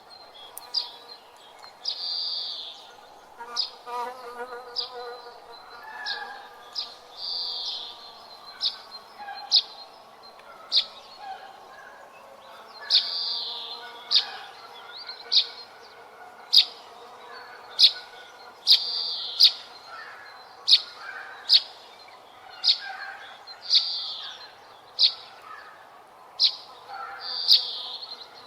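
Birds chirping: short, sharp high chirps about once or twice a second, with softer warbling calls between.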